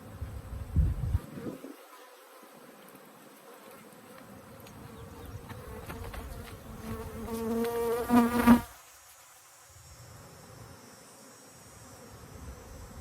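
Angry honeybees from a disturbed hive buzzing around. One bee buzzes close by, growing louder for about two seconds before cutting off sharply about two-thirds of the way through. There is a brief low thump about a second in.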